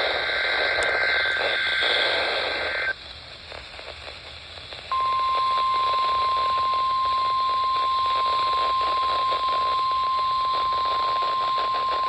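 NOAA Weather Radio broadcast over receiver static: for the first three seconds the two-pitched buzzy data burst of a SAME digital header, then a short stretch of hiss. About five seconds in, the steady 1050 Hz warning alarm tone starts and holds, sent as a test of the alert system.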